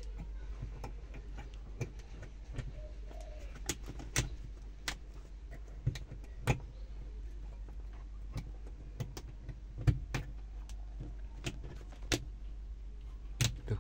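Scattered, irregular plastic clicks and taps from an LED cabin light bulb being pulled out of a car's dome light fitting, turned around and pushed back in, because it did not light the first way round. A couple of sharper clicks come near the middle, over a steady low hum.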